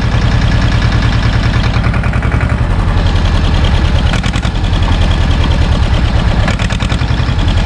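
A small SAME tractor's diesel engine running under way, with a steady, evenly pulsing beat; its note changes slightly about two and a half seconds in.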